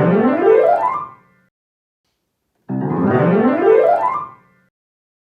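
Piano playing a short sound-effect figure twice: a quick run of notes rising in pitch over a held low chord, each time stopping after about a second and a half.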